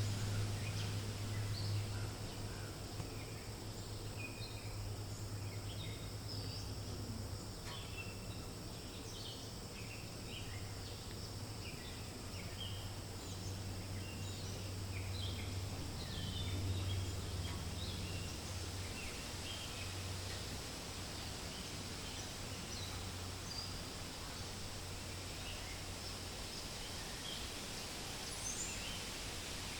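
Forest ambience: a steady rustling hiss of wind in leaves over a low rumble, with many small birds chirping in short, scattered notes throughout and a rising high call near the end.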